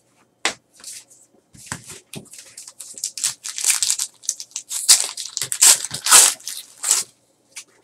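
A 2014 Panini Prizm baseball card pack's foil wrapper being torn open and crinkled. A few light clicks and rustles come first, then a few seconds of dense crackling tearing and crumpling that stops shortly before the end.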